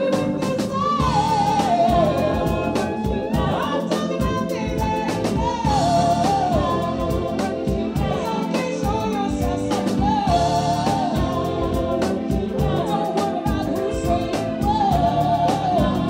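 Live band music: a woman sings lead over electric guitar, keyboards and a steady drumbeat, with a second woman singing along.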